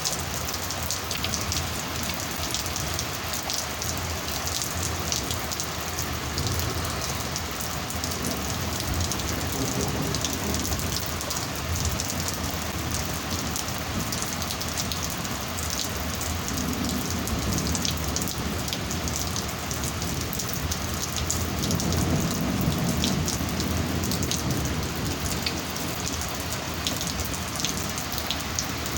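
Heavy rain falling steadily, with many individual drops pattering on a hard surface, during a thunderstorm. A few low rumbles swell and fade along the way.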